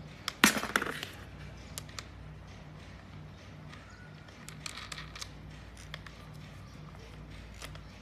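Small metal parts of an angle grinder's spindle head clicking and clattering as they are handled: a brief burst of rattling clicks about half a second in, then scattered light clicks.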